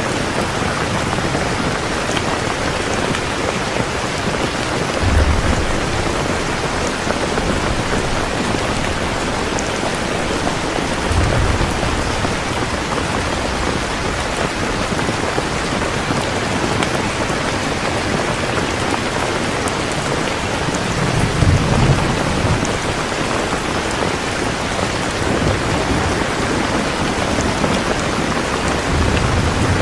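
Heavy rain pouring steadily, with short low rumbles of thunder rolling in four times: about five seconds in, around eleven seconds, around twenty-one seconds, and near the end.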